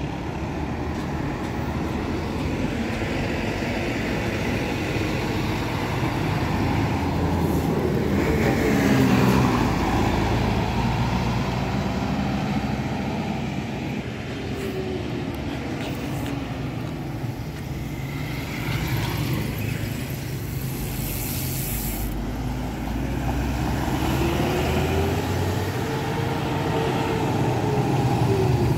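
Expressway traffic with heavy road vehicles passing: a steady engine rumble whose engine notes swell and fall as vehicles go by, with a brief hiss about two-thirds of the way through.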